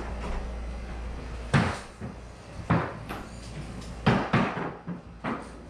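A series of sharp knocks and thumps at irregular intervals of about a second, over a low steady hum that stops about a second and a half in.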